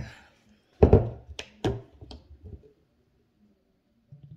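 A few sharp taps and knocks of small objects being handled on a table, four close together about a second in, then fainter handling noises.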